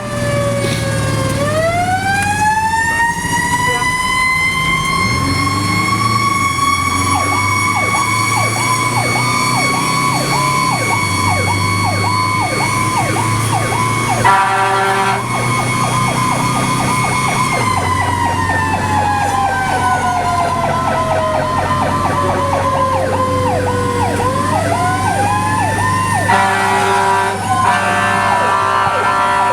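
Fire engine running code with its siren winding up, holding a high wail, sliding slowly down and winding up again. A second siren pulses rapidly through the middle, and blasts of the horn come about halfway through and near the end, all over the steady drone of the engine.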